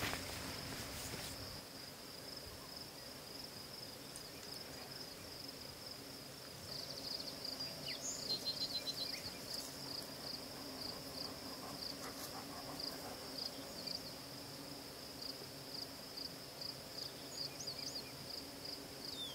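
Crickets chirping in a high, steady chorus that turns into regular chirps about twice a second partway through, with a faint low hum beneath. A brief rustle at the start.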